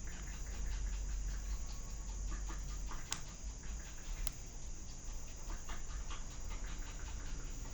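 A few faint clicks of the buttons on a small Bluetooth speaker being pressed and handled, two of them more distinct about three and four seconds in, over a steady low hum.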